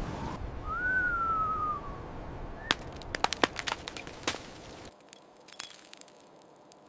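Rushing wind noise with a brief high whistle that rises and then slowly falls, then a run of sharp cracks and snaps. The wind cuts out about five seconds in, leaving a few faint clicks.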